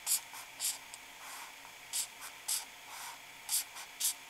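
Felt-tip marker drawing on paper: a series of short, scratchy strokes, several in a few seconds, as straight line segments are drawn.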